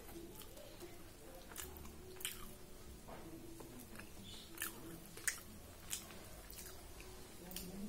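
A person chewing a mouthful of puri with ragda, with several short, sharp mouth smacks.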